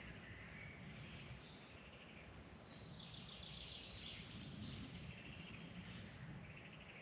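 Faint birdsong, with chirping phrases coming and going over a steady low background rumble.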